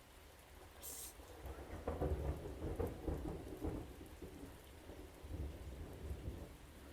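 Thunder rumbling over steady rain: a crackling rumble builds about two seconds in and slowly dies away, with a weaker swell near the end.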